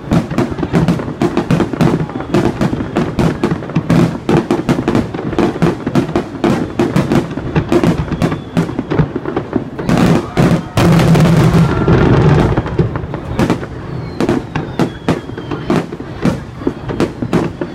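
Fireworks display: aerial shells bursting in rapid, irregular bangs and crackles, several a second, with a louder, denser barrage about eleven seconds in.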